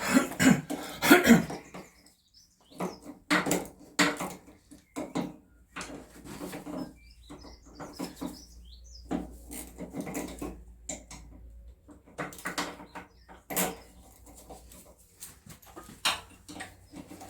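Irregular clinks, taps and knocks of spanners and metal steering parts being handled while the rack and pinion are worked loose.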